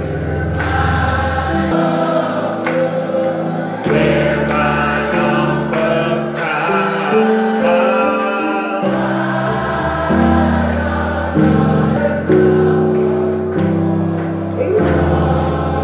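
Church congregation and worship leader singing a gospel worship song together, backed by instruments with deep bass notes that change every second or two and a steady beat.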